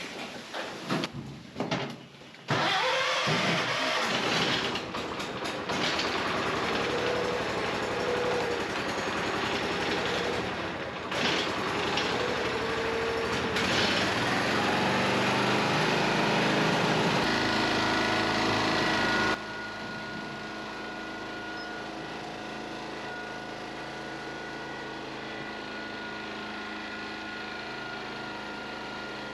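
An engine starting and running, heard as several short edited clips that change abruptly. About two-thirds through it drops to a quieter, steadier running sound.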